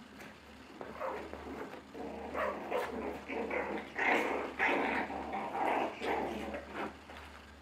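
Five-week-old Bolonka Zwetna puppies play-fighting, a stream of small growls and yaps that starts sparse and thickens about two seconds in.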